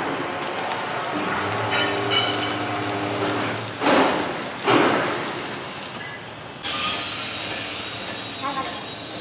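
Machine-shop noise: a steady hiss with a low hum that comes in for a couple of seconds, and two louder rushes of noise near the middle.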